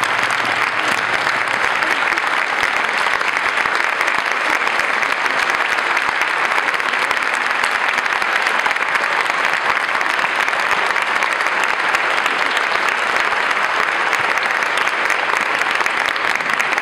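A large audience of hundreds applauding loudly and steadily, a long, unbroken ovation.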